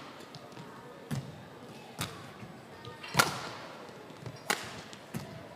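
Badminton rackets striking a shuttlecock in a rally: a string of sharp, short smacks about a second apart, the loudest a little past three seconds in, echoing slightly in a large sports hall.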